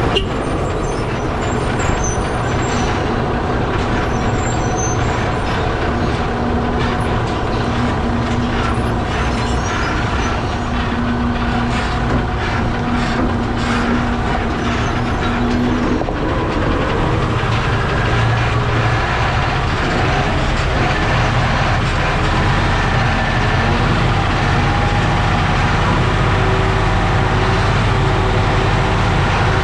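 Lorry on the move, heard from under its chassis by the front wheel: engine, tyre and road noise. A steady hum gives way to a lower drone about sixteen seconds in.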